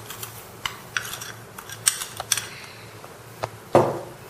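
Metal spoon clinking against a bowl in scattered light clicks as sugar is stirred into milk to dissolve it, with one louder knock near the end.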